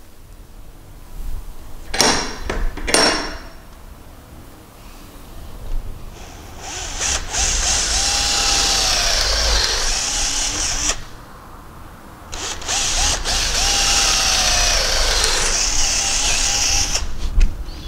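Cordless drill boring dowel holes into a softwood piece with a twist bit: two runs of about four to five seconds each, the motor whine sagging and recovering as the bit cuts. Two short knocks come about two seconds in, before the drilling.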